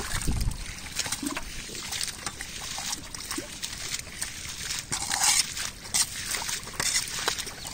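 Muddy pond water sloshing and splattering, with wet squelches and many small splashes as hands and a bowl scoop among wriggling catfish. The loudest splash comes about five seconds in.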